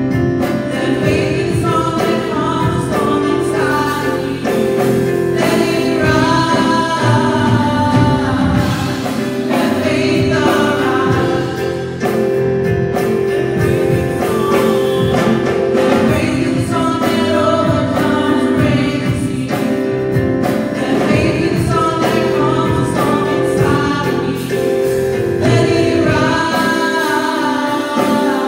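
A church worship team singing a gospel praise song together, with instrumental accompaniment of held chords and a steady beat.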